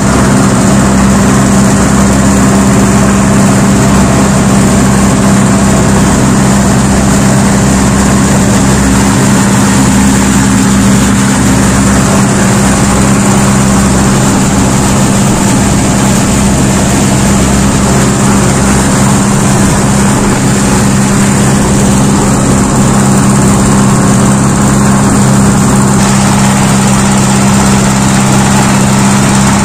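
Small motorboat's engine running steadily at speed, a constant low drone, with the rush of churning water from the wake.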